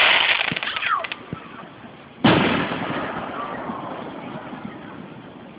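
Aerial fireworks bursting: a crackling blast that fades over the first second, then a sharp boom a little past two seconds that rumbles away slowly.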